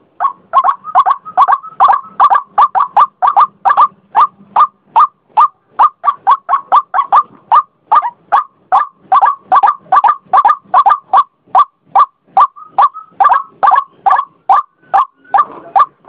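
White-breasted waterhen calling: a loud, unbroken series of short, harsh notes, about three a second.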